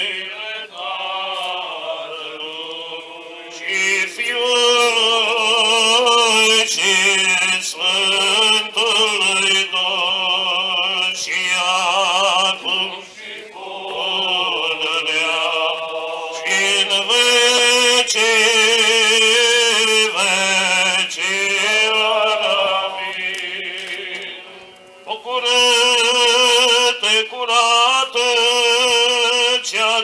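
Male voices chanting a Romanian Orthodox funeral hymn, sung in long phrases broken by a few short pauses.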